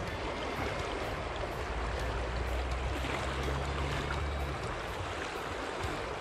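Steady rush of a flowing river, with a low rumble for a couple of seconds in the middle.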